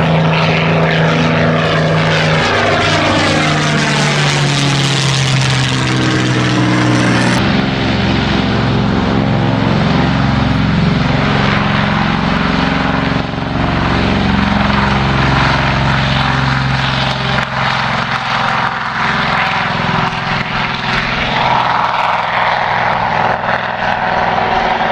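Propeller aircraft engines running loud and steady in a flypast, the engine note dropping in pitch as the aircraft passes. The sound cuts abruptly about a third of the way in to another steady stretch of propeller drone.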